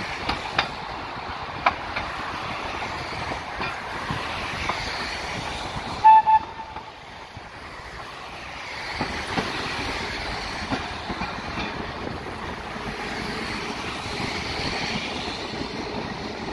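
Interurban tram running along street track, its steady wheel-and-rail rumble broken by sharp clicks as the wheels pass over rail joints. About six seconds in a horn gives two short toots in quick succession.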